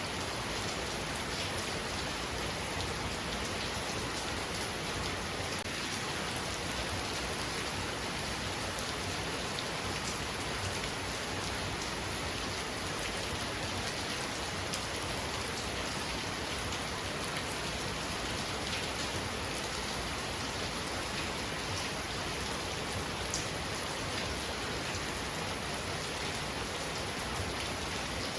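Heavy rain falling steadily, a dense even hiss of drops hitting surfaces, with the odd louder drop tick.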